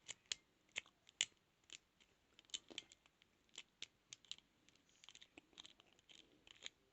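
Lock pick rake working the pins of a transparent practice padlock: faint, irregular small metallic clicks and scratches.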